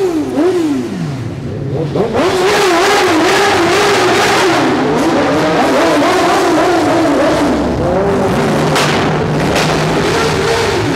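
Sport motorcycle engine being revved. Two quick throttle blips at the start, then from about two seconds in a long loud run of rapid rises and falls in engine pitch.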